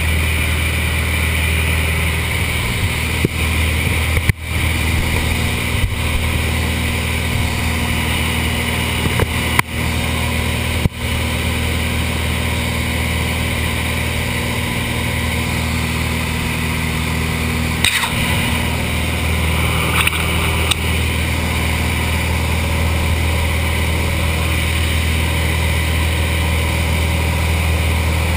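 Small single-engine propeller plane's engine and propeller droning steadily, heard from inside the cabin in flight. There are a few brief knocks.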